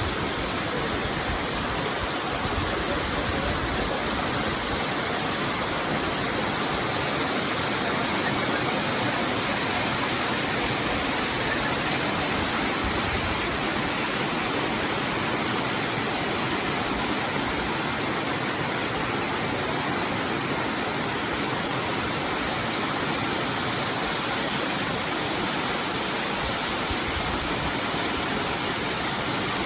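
Creek waterfall pouring over a rock slab: a steady, even rush of water.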